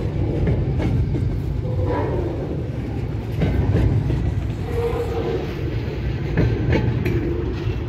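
Double-stack intermodal container train's loaded well cars rolling past close by: a steady low rumble of steel wheels on the rails, broken by irregular clicks and clanks from the wheels and cars.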